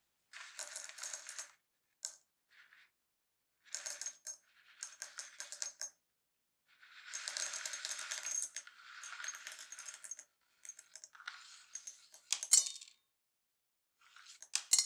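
Roasted coffee beans poured into a small square glass in a series of short pours, the beans clattering and clinking against the glass and each other. A sharper click comes about twelve seconds in and another near the end.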